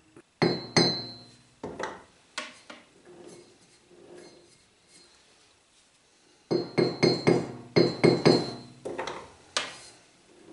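Hammer blows on a steel tube, driving it into a tight fit. The sharp metallic strikes ring: a few spaced blows at first, then a quicker run of about a dozen about six seconds in.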